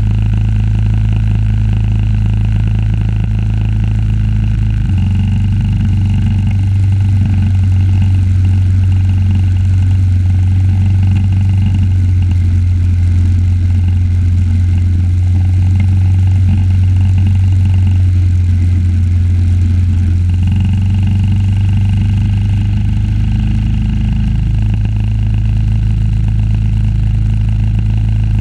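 The engine of a 1976 Simplicity running steadily under load, a loud continuous hum. Its tone shifts about five seconds in and again around twenty and twenty-five seconds in.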